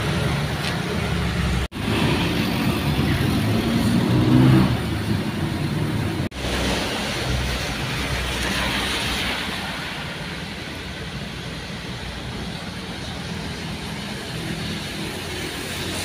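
Truck engine running steadily with tyre noise on a wet road, heard from inside the cab. The sound drops out sharply twice in the first several seconds.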